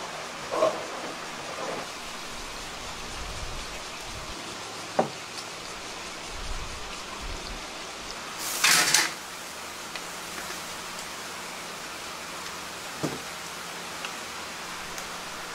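Steady sizzling hiss from a charcoal rotisserie grill as water is squirted over whole chickens turning above the hot coals, with a louder hiss about eight and a half seconds in. A few short sharp knocks stand out.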